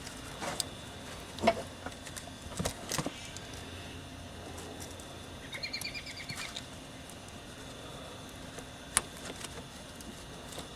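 A few light clicks and knocks of hand work, with a short run of rapid, high bird chirps in the middle.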